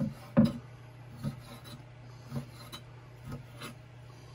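Chef's knife cutting squid into rings on a wooden cutting board: several short knocks of the blade on the board at uneven intervals. A low steady hum lies underneath.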